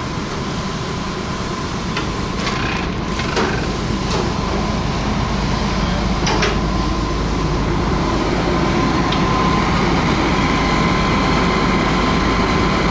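Fire engine's diesel engine running steadily, growing louder over the first several seconds, with a steady whine above the rumble. A few sharp knocks sound in the first half.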